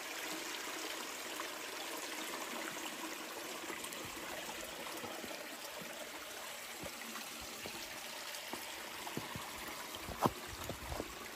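Mountain stream running steadily beside the path, with a few short thumps near the end, the loudest about ten seconds in.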